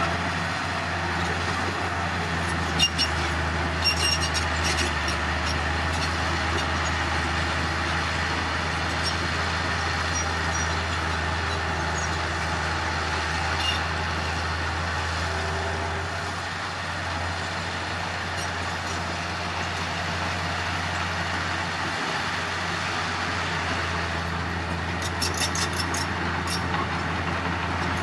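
Heavy earthmoving machine's diesel engine running steadily with a low drone. A few sharp clicks or clanks come about three to five seconds in and again near the end.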